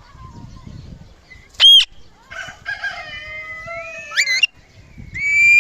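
Indian ringneck parakeet calling: one short, loud, arching shriek about one and a half seconds in, then a stretch of chattering with gliding notes, and a loud drawn-out call near the end.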